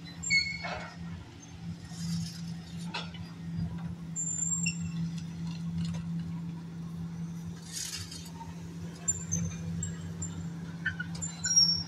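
Long-reach demolition excavator's diesel engine running steadily, with short high squeals and clinks of metal and debris as the building is torn apart, and a few brief crumbling rushes of falling rubble, about 3 and 8 seconds in.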